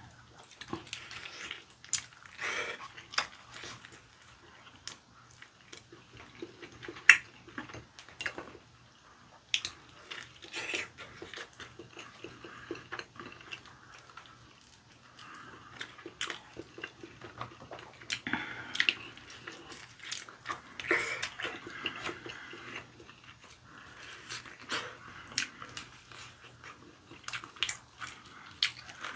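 People chewing and biting into sauced fried chicken, with irregular wet chewing and sharp crunches and clicks scattered throughout. The loudest click comes about seven seconds in.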